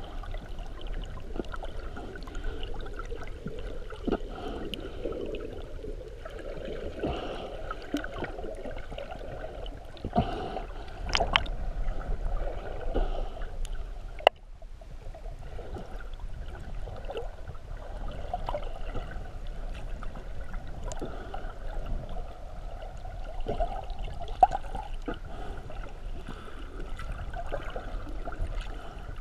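Muffled water sloshing heard from underwater through a GoPro's sealed housing, with scattered sharp clicks and knocks and a louder stretch of sloshing a third of the way in.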